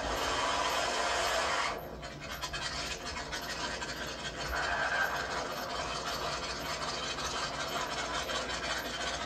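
Ford Mustang fastback doing a burnout, its rear tyres spinning in a loud steady noise that stops abruptly about two seconds in. The car's engine then runs at low speed as it rolls forward, heard as a rough rattling noise.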